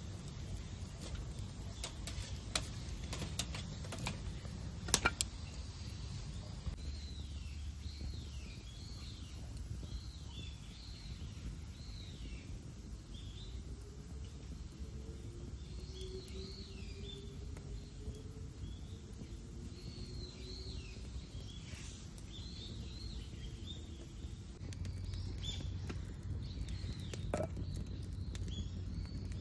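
Wood fire burning in a campfire grill, crackling with a few sharp pops, the loudest about five seconds in. A small bird chirps repeatedly through most of it.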